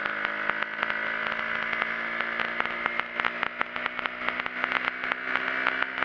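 Small motorcycle engine running steadily under acceleration while riding, with wind noise and frequent sharp clicks and rattles on the microphone.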